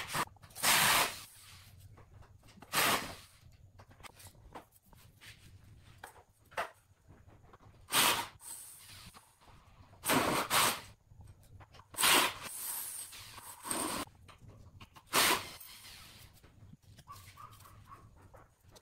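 A wooden stick scraping thick glue across the faces of wooden blocks: about nine short scraping strokes at irregular intervals, with quieter handling of the blocks in between.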